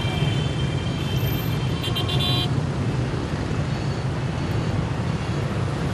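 City street traffic: a steady low rumble of passing vehicles, with a vehicle horn sounding briefly about two seconds in.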